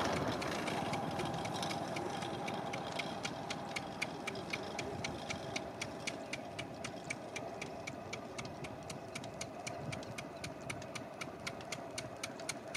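Steady, evenly spaced ticking, several ticks a second, over a faint steady hum; a louder broad noise fades out over the first couple of seconds.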